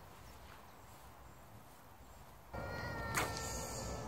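Low background for the first half, then a carp rod being cast: one sharp swish of the rod about three seconds in. A steady high whine runs under it from about halfway.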